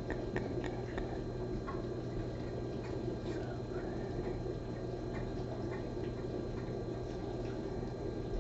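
Room background: a steady low hum with scattered faint ticks and clicks at irregular intervals.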